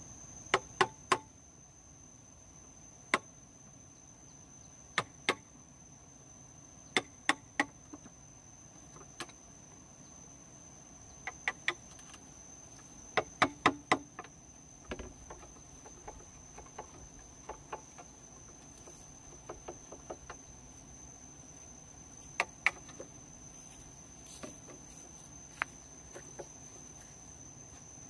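Sharp knocks of hand-tool work on bamboo, coming in twos and threes with pauses between. Under them runs the steady, high-pitched drone of an insect.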